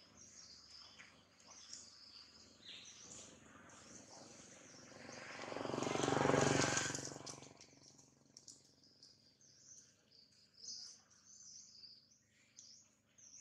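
Birds chirping and twittering steadily in the background. Midway, a broad rushing noise swells up and fades away over about three seconds and is the loudest sound.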